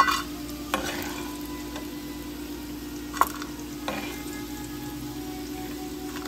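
Food sizzling as it fries in a pot while it is stirred, with about four sharp knocks of the utensil against the pot, over a steady low hum.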